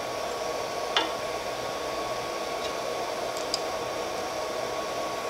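Steady hiss of the 3D printer's hotend cooling fan running, with a short light click about a second in from the wrench on the nozzle.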